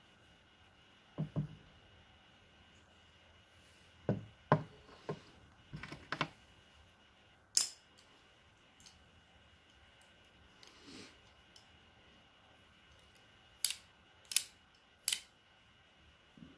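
Scattered clicks and taps of a double-blade guillotine cigar cutter being handled, with three sharp metallic clicks in quick succession near the end.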